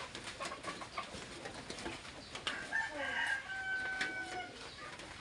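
A rooster crowing once, a long held call about halfway through, over small clicks and scrapes of a knife peeling a green mango.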